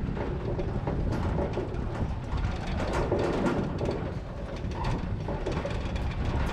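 Open metal utility trailer towed over a rough dirt track, rattling and clanking with the strapped-down Hustler Super S stand-on mower shaking on its deck, over a steady low rumble of tyres and travel.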